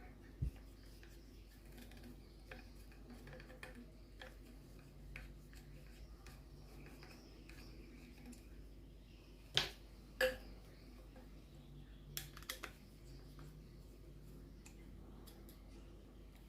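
Desk fan parts being handled and fitted together during assembly: scattered faint clicks and taps, with two sharper clicks about ten seconds in and a short cluster of clicks soon after.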